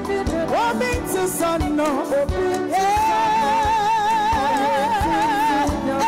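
Live gospel band music with a woman singing over keyboards, bass and drums; about three seconds in, one long note is held with a steady vibrato for about three seconds.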